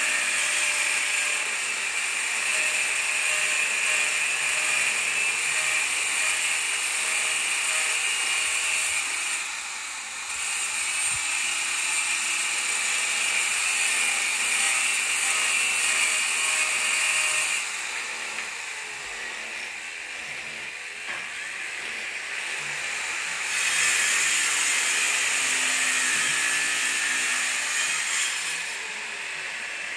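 A power tool running in long spells of several seconds, easing off in between: about ten seconds in, again from about a third of the way to two thirds, and near the end.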